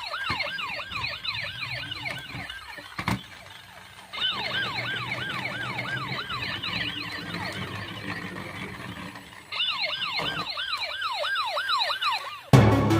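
Toy police car's electronic siren sounding in three bursts of quick falling yelps, about four a second, with a click between the first two bursts. Music starts near the end.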